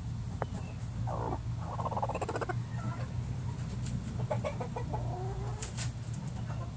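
Chickens clucking in a few short, soft calls over a steady low hum, with a couple of sharp clicks near the end.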